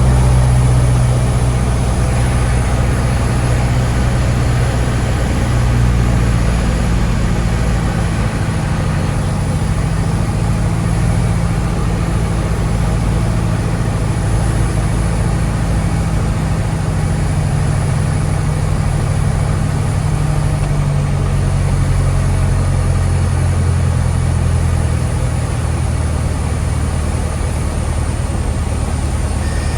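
Diamond DA20's four-cylinder piston engine and propeller droning steadily in flight, with a few small shifts in pitch.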